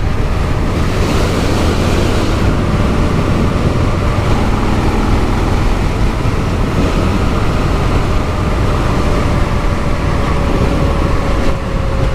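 Harley-Davidson Fat Bob motorcycle with a stage 2 tune riding at speed. Its V-twin engine runs steadily under heavy wind noise on the microphone. A faint engine note slowly falls in pitch in the second half.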